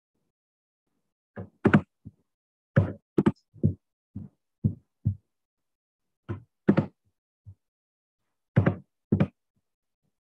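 Irregular knocks and thumps, about a dozen, some single and some in close pairs, with dead silence between them.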